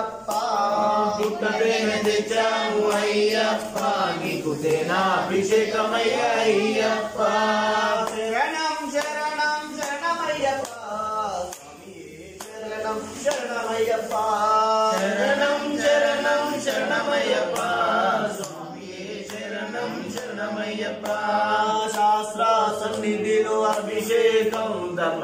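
A group of voices chanting an Ayyappa devotional song for the abhishekam, with a brief lull about twelve seconds in.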